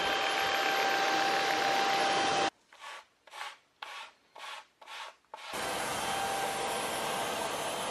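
Handheld vacuum cleaner running with a steady whine, which cuts off suddenly about two and a half seconds in. Then come five quick scraping strokes, about two a second, of a pumice stone rubbed over fabric to pull up hair, before the vacuum runs again.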